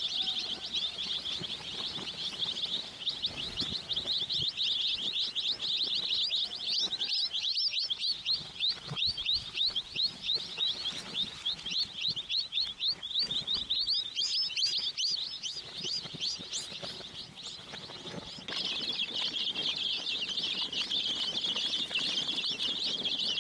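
Domestic chicks peeping as a flock, many short high cheeps overlapping without pause. The peeping thins out for a couple of seconds past the middle, then comes back dense near the end.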